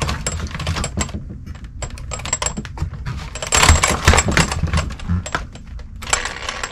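Rapid clicking and rattling of an Arrma Infraction V2 RC car's chassis, suspension and wheels as it is handled and turned over on a workbench, with a louder stretch of scraping and rustling about halfway through.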